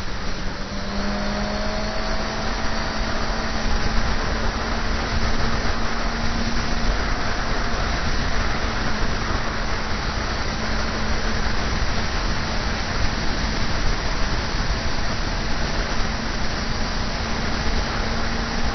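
Motorcycle ridden at speed, with wind rushing over the camera's microphone as the loudest sound. A steady engine note runs underneath and rises slightly about two seconds in.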